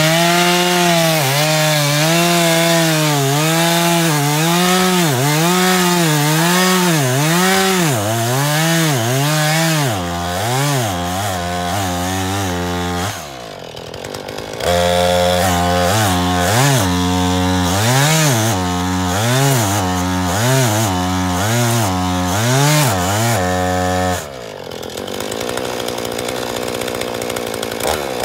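Gas chainsaw's two-stroke engine cutting through a log, its speed swinging up and down as the chain bites. It drops back to idle twice, briefly about halfway and for several seconds near the end, then revs up again.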